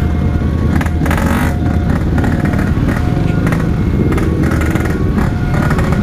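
Yamaha RX-King's 135 cc two-stroke single-cylinder engine running at low revs through its stock-style aftermarket exhaust, amid the engines of many other motorcycles in slow, crowded traffic.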